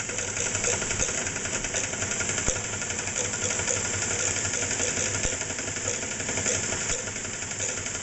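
Singer 237 zigzag sewing machine running steadily, stitching a zigzag through several layers of denim, with a fast, even clatter of needle and feed.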